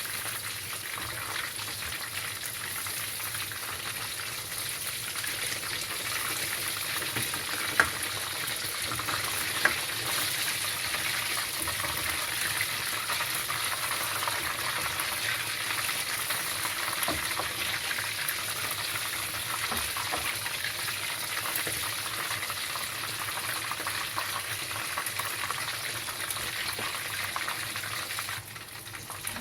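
Tilapia fish frying in hot oil in a pan: a steady sizzle, with two sharp clicks about 8 and 10 seconds in.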